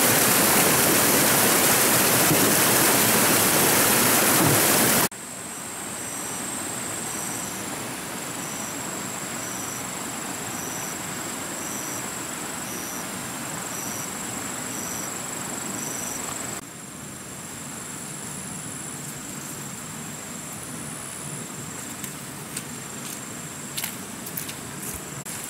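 Forest ambience: a loud, steady rushing noise for about the first five seconds, then cut to quieter ambience. In the quieter part, high-pitched insect calls hold a steady thin whine, with short chirps repeating about once a second. A few sharp clicks come near the end.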